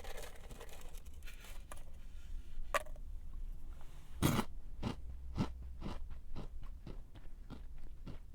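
A person biting and chewing a crunchy snack: a loud crunching bite a little after four seconds in, then steady chewing crunches about twice a second.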